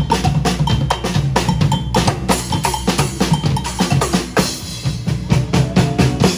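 A percussion band playing on a passing pontoon boat: drum kit and hand drums beating a busy, steady rhythm with many strikes each second.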